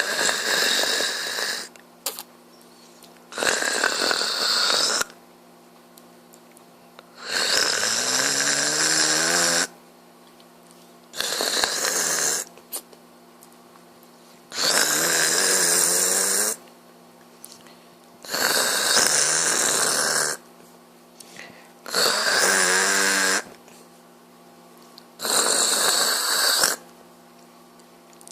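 A man snoring loudly in deep sleep: eight long, rasping snores, coming about every three and a half seconds, some rising in pitch as they go.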